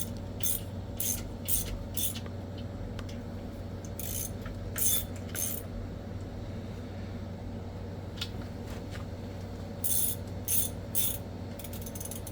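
Socket ratchet clicking as bolts are run in between the engine and transmission, quick sharp clicks about two a second in short runs with pauses between them, and a faster run near the end.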